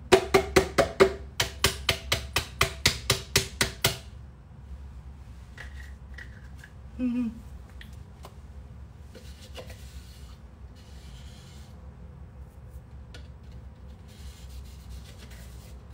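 A hand tapping the base of an upside-down plastic tub of date powder to knock out the last of the powder: a quick run of sharp taps, about four or five a second, for about four seconds with a brief break about a second in. Faint rubbing and scraping follows.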